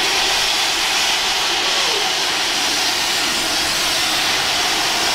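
Rhaetian Railway steam locomotive venting steam from its open cylinder drain cocks while moving slowly: a loud, steady hiss.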